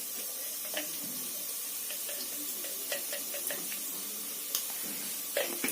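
Meat, onions, garlic and ginger frying in oil in a pot: a steady sizzle, with a few light clicks and knocks.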